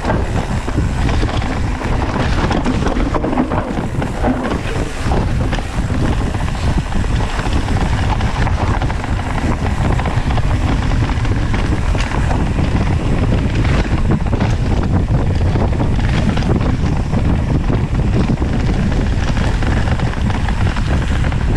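Wind rushing over the camera microphone together with the rumble and rattle of a mountain bike rolling fast down a rough dirt trail, with constant small knocks from the bike bouncing over roots and ruts.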